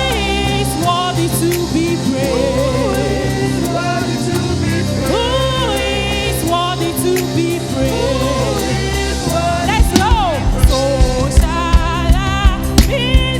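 Gospel worship music: a singer's voice gliding through sung runs over sustained keyboard and bass chords, with a steady drum beat coming in about ten seconds in.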